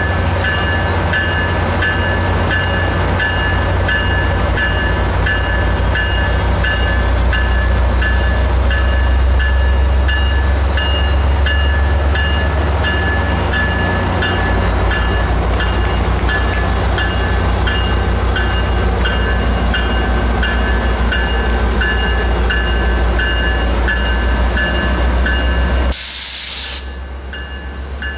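Diesel passenger locomotive running as the train pulls slowly away, engine droning under a bell ringing about twice a second. Near the end comes a short, sharp hiss of air.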